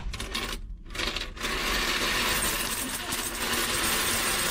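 Coins pouring from a vending machine's metal coin box into a plastic bag: two short clattering bursts at first, then a steady jingling stream of coins for about three seconds.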